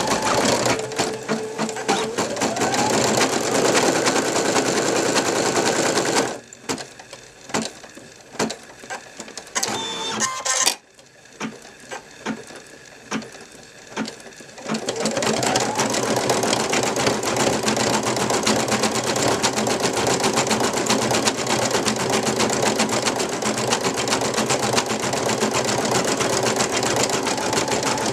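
Brother NV2600 computerized embroidery machine stitching at speed: a fast, steady needle rattle with a rising motor whine as it speeds up. About six seconds in, it stops for several seconds, with only a few clicks and a brief tone. About fifteen seconds in, the motor whines up again and steady stitching resumes.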